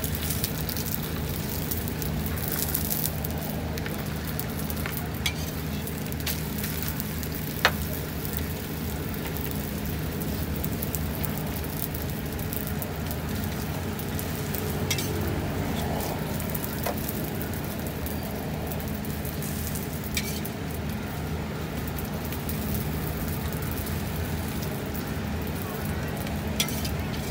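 Folded egg roti sizzling steadily in oil on a flat metal griddle. A metal spatula now and then clicks sharply against the griddle, loudest about eight seconds in.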